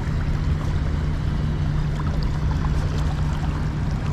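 Fast river current rushing steadily close to the microphone, with a low steady rumble under it.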